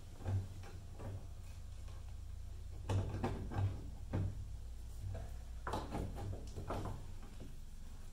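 Wires and clips of a car's underdash wiring harness rattling and clicking as they are pulled and worked loose by hand, in scattered short knocks, over a steady low hum.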